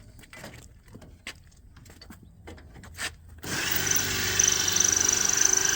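A few faint clicks, then about halfway through a power drill starts abruptly and runs steadily with a high whine. It is a long bit drilling out a rivet in a GM bus's body panel.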